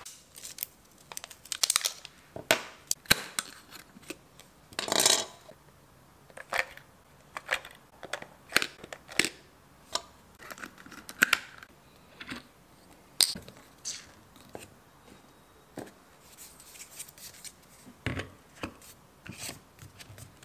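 Plastic clicks, taps and short rustles from handling an automatic soap dispenser and its paper insert, as the motor unit and refill bottle are fitted together, with a longer rustle about five seconds in.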